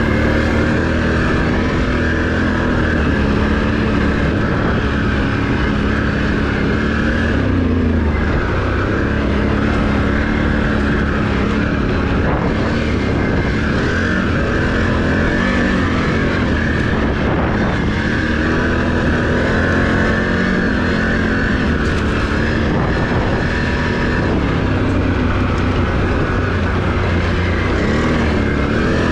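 Can-Am Renegade ATV's V-twin engine running on a trail ride. Its pitch rises and falls several times.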